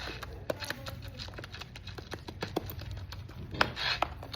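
Slime being mixed and kneaded by hand: irregular small wet clicks and pops, with one sharper pop about three and a half seconds in.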